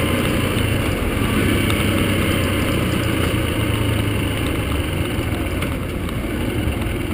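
Yamaha XTZ-125's single-cylinder four-stroke engine running steadily while the motorcycle is ridden, over a steady rush of wind and road noise. The engine note eases off slightly in the last couple of seconds.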